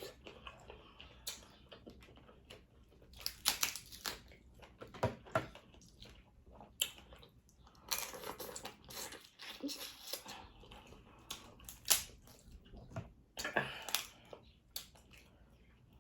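Eating seafood in sauce close to the microphone: irregular wet clicks, crunches and chewing, some louder snaps among them.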